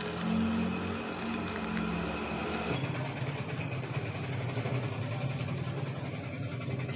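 A steady low machine hum that drops to a lower pitch about three seconds in.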